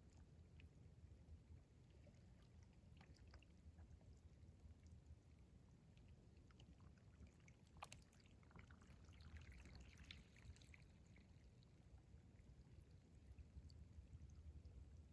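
Faint sound of a rising tide: a low, steady wash of water with small trickling and dripping clicks, which thicken briefly about eight to ten seconds in.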